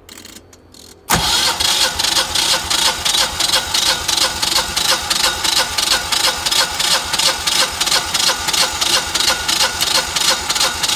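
A Generac standby generator's two-cylinder engine being turned over by its electric starter with the spark plugs out, for a compression test. A few light clicks, then about a second in the cranking starts suddenly and keeps going with an even, pulsing beat.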